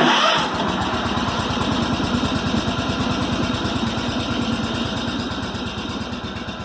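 Small garden tractor engine running steadily at idle, starting abruptly and fading slowly towards the end.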